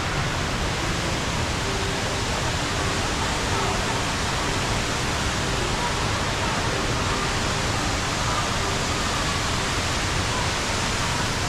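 Steady rushing of a large indoor waterfall, the Rain Vortex, with water falling continuously and unchanging in level.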